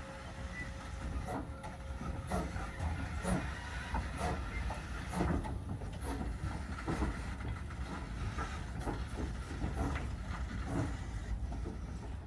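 Passenger train rolling by: irregular clicks and clacks of the wheels over rail joints, over a steady low rumble.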